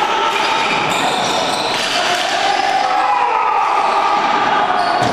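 Hockey game sounds echoing in an arena: players' voices shouting over a few knocks of sticks and ball on the playing surface.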